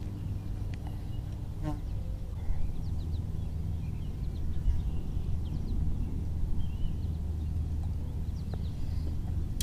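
Outdoor ambience: a steady low hum, with a short squeak about two seconds in and a few faint, brief high chirps.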